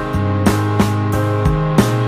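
Instrumental background music with sustained notes and a steady beat.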